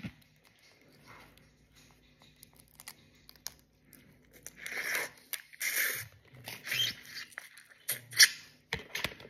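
Boiled crawfish being broken apart and sucked at the mouth: a series of short crackling, slurping bursts, mostly in the second half.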